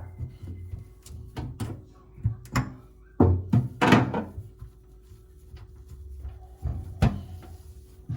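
A string of knocks and clatter from hard items being handled. Several separate knocks come in the first three seconds, then a louder rattling clatter a little past three seconds in, and one last sharp knock about seven seconds in.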